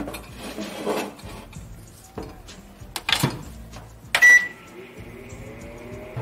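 Microwave oven being loaded and started: a tray slides in, the door shuts with a clunk about three seconds in, and a short keypad beep sounds a second later, followed by a faint rising tone.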